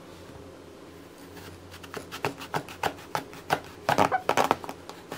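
Eggplants handled and set down on a wooden cutting board: a run of light knocks and taps starting about two seconds in and busiest near the end, over a low steady hum.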